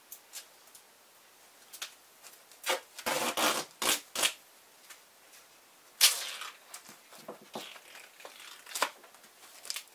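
Duct tape being pulled off the roll in several short rips, with rustling and rubbing as it is handled and pressed down; the loudest rip comes about six seconds in.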